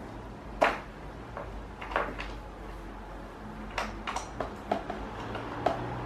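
Scattered plastic clicks and knocks from a Loren Sid pedestal fan's head being tilted and turned by hand, about eight in all, the loudest under a second in.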